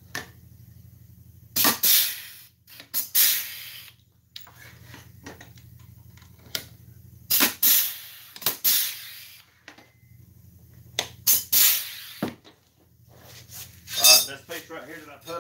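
Pneumatic pop-rivet gun setting rivets in a tractor seat's metal pan: about five groups of short, sharp hissing bursts, often two in quick succession, each a pull of the rivet and the gun's air release, with metallic clinks.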